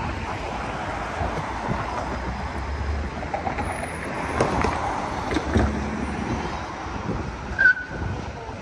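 Street traffic at an intersection: cars and a low-floor TTC Flexity streetcar rolling past on its rails, with a low rumble in the middle. A short high squeak near the end.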